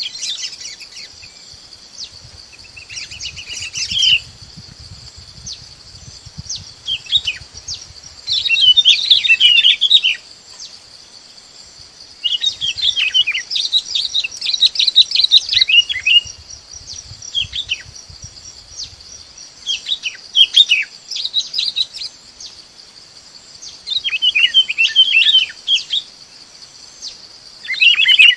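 Bulbuls (chim bông lau) calling in bursts of quick, bubbly chattering notes, each phrase one to a few seconds long and repeated every few seconds, the kind of flock call used as a trapping lure. A steady high-pitched buzz runs underneath throughout.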